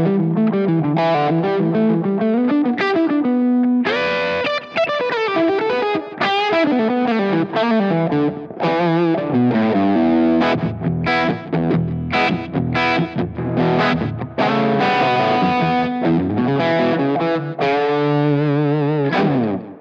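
Electric guitar (a 1976 Gibson ES-335) played with a short slap-back delay from a Strymon Timeline. It plays a lead line of quick runs and string bends, ending with a quick slide down the neck.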